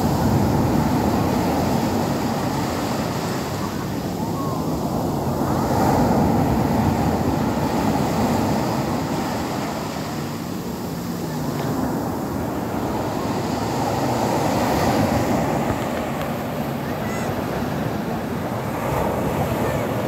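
Rough sea surf breaking and washing up a beach, a continuous rushing that swells and eases as each wave comes in.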